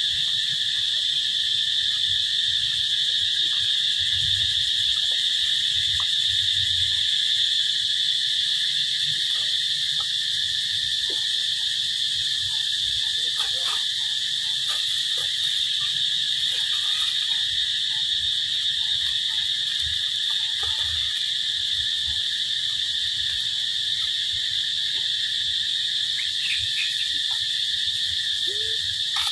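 Steady, high-pitched insect drone with a fainter lower tone beneath it, and faint scattered ticks and rustles underneath.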